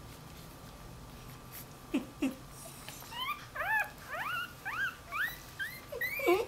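Newborn Dachshund–Jack Russell cross puppy whining for its mother: a run of short, high-pitched cries that rise and fall, about two a second, starting about three seconds in after two short low grunts.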